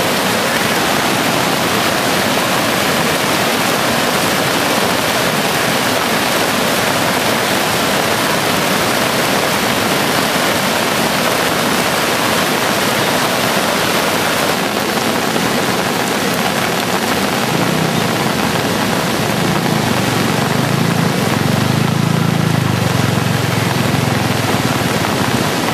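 Steady rushing of a river in flood, fast turbulent floodwater surging and churning. A low rumble builds underneath it about two-thirds of the way through.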